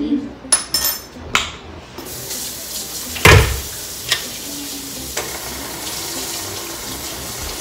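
A few clicks and knocks of utensils on the mixing bowl, then about two seconds in an electric mixer starts beating the cookie batter with a steady hiss. A loud knock comes a second later, with lighter ones after it.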